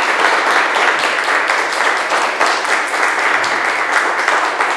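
An audience applauding: many people clapping steadily in a dense patter.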